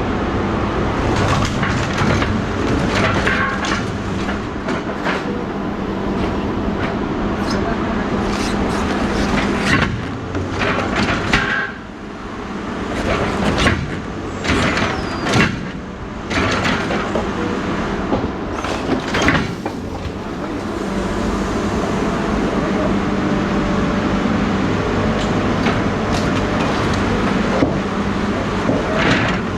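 A vehicle engine running steadily, with irregular knocks and clanks on top of it, loudest in the middle stretch.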